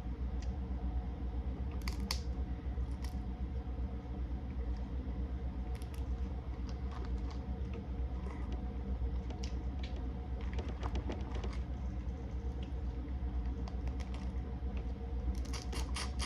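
Scattered small clicks and crunches of someone eating seafood boil by hand, cracking and peeling shells and chewing, over a steady low hum. A quick run of clicks comes near the end.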